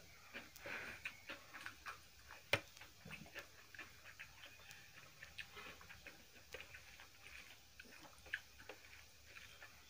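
Quiet eating sounds: soft, irregular clicks and smacks of chewing and of fingers working rice on steel plates, with one sharper click about two and a half seconds in.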